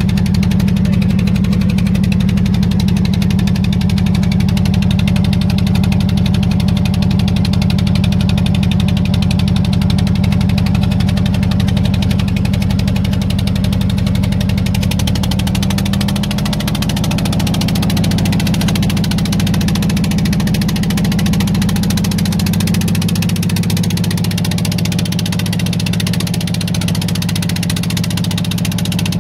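Fishing boat's engine running loudly and steadily, its pitch shifting slightly about halfway through.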